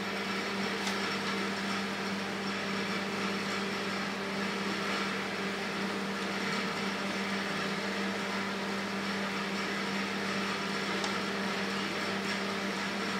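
Steady machinery hum: a constant low drone with an even hiss behind it, unchanging throughout.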